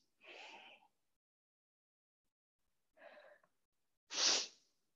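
A woman breathing audibly while rolling her shoulders: faint breaths in the first second and about three seconds in, then a louder breath about four seconds in.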